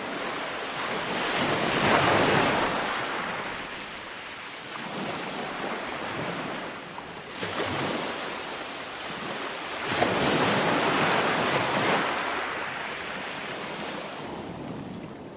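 Ocean waves breaking on a shore, surging and washing back; the biggest breakers swell up about two seconds in and again around ten seconds in, with smaller ones between.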